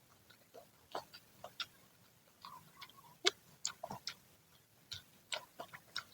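Close-up chewing of freshly fried battered snacks (gorengan): irregular crisp clicks and crunches from the mouth, about two a second.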